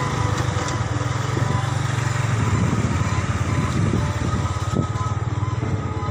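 Small motorcycle engine running steadily at low speed, a continuous low drone with road and air noise over it.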